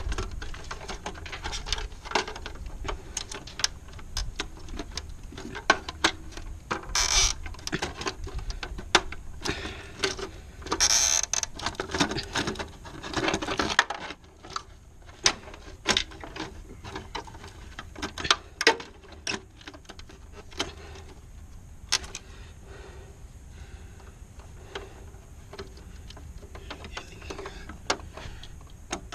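Irregular clicks, knocks and rattles of hands and tools working on a pool timer's clock mechanism and metal box, with a couple of longer scraping stretches in the first half. A low steady hum underneath stops about halfway through.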